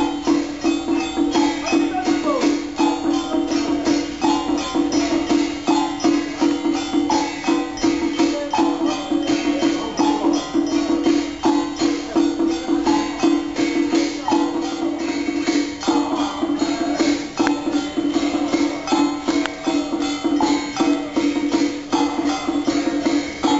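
Taoist ritual music: fast, even percussion strokes over a sustained low tone, with a steady beat throughout.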